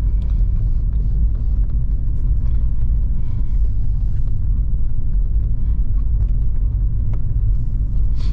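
Steady low rumble inside the cabin of a moving Volkswagen Polo 1.0 TSI: its three-cylinder turbo petrol engine running, mixed with tyre and road noise, with a few faint ticks.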